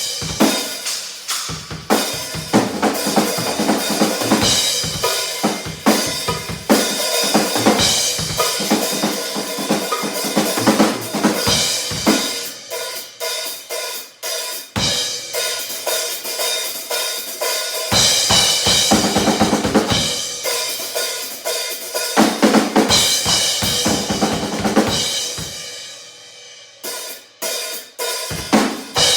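Acoustic drum kit played: snare, bass drums and toms with crashing cymbals and hi-hat. The playing is dense, thins out about three-quarters of the way through, then resumes with separate hits near the end.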